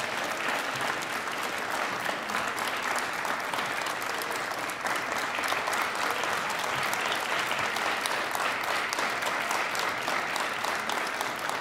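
Congregation applauding: many hands clapping steadily, easing off near the end.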